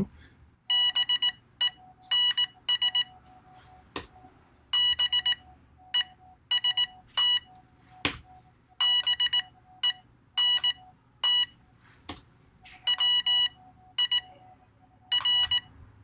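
Morse code side tone from a Teensy-based USB Morse keyboard adapter, keyed with a single-lever iambic paddle: groups of short and long buzzy beeps on one pitch, spelling out "bens best bent wir" letter by letter with pauses between. A few sharp clicks fall in the gaps.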